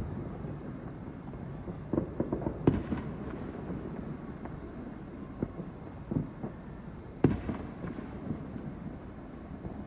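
Fireworks going off: a string of sharp bangs at uneven intervals, the loudest about three and seven seconds in, with crackling between them.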